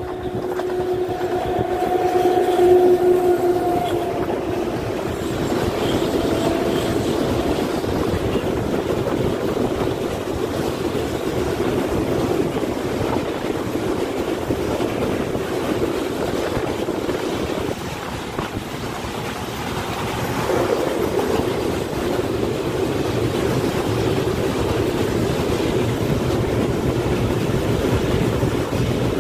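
Freight train of open wagons loaded with coal rolling past at close range, a continuous rumble and rattle of wheels on rail. A steady tone sounds for the first few seconds as the electric locomotive goes by, then fades.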